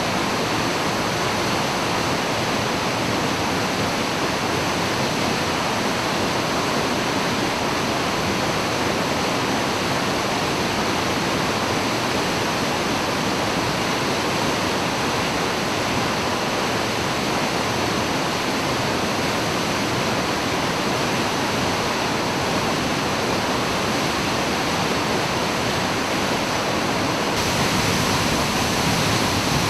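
A 30 m straight-drop waterfall plunging into its pool, a loud, steady rush of falling water that grows slightly louder and brighter near the end.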